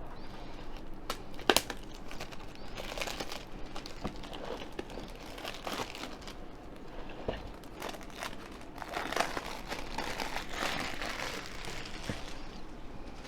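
A cardboard box and its packaging being opened by hand: crinkling and rustling in several stretches, with a few sharp snaps, the loudest about one and a half seconds in.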